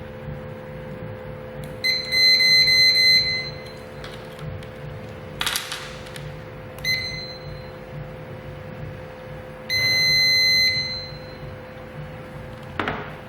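GSM home alarm system beeping during detector pairing: a pulsing high beep of about a second and a half, a short beep, then a steady beep of about a second, over a steady low hum.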